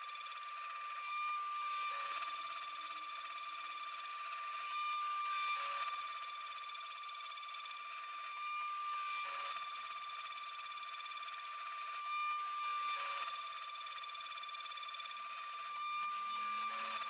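CNC milling machine cutting steps into a metal step block with an end mill: a steady high machining whine whose character changes briefly every three to four seconds as the cutter moves from one pass to the next.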